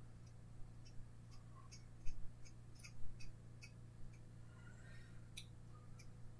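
Light, irregular clicks of a small hand tool against tiny plastic model figures as body putty on their hands is cleaned up. The clicks come about three a second for the first few seconds, then twice more near the end, over a steady low hum.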